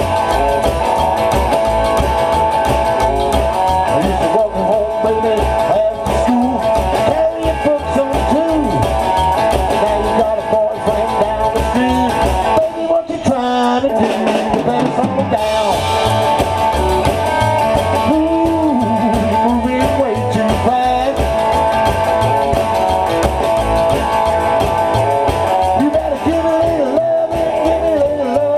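A live blues and rock-and-roll band playing: drum kit, upright double bass and electric guitar, with a harmonica carrying held, wavering notes over the beat.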